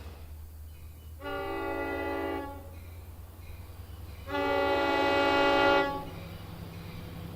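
Long Island Rail Road DE30AC/DM30AC-series locomotive horn sounding two blasts: a shorter one about a second in, then a longer, louder one near the middle, each a steady multi-note chord. A steady low rumble runs underneath.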